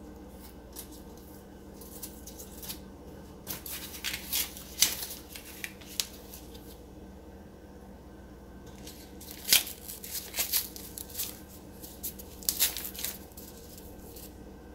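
Raw canned biscuit dough being peeled apart and set by hand on a pot pie filling in a glass baking dish: two spells of quick crackly tearing and rustling, the second about nine seconds in, over a steady low hum.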